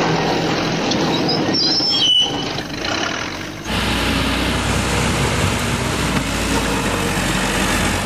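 A rough, noisy rumble for the first few seconds, dipping briefly. About three and a half seconds in it cuts to the steady low running of a backhoe loader's diesel engine as the machine pushes earth.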